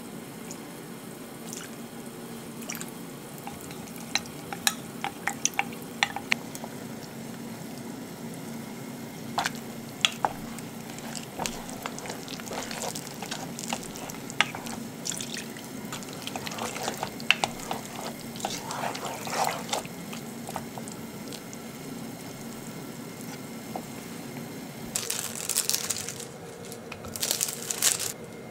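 Kitchen prep sounds over a steady low hum: scattered clinks and scrapes as a spoon stirs potato-starch slurry in a glass beaker and a spatula stirs a simmering cream stew in a pan. Near the end, two bursts of crinkling as plastic wrappers are peeled off cheese slices.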